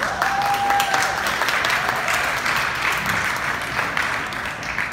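Audience applauding: many hands clapping at once, with one short held note near the start.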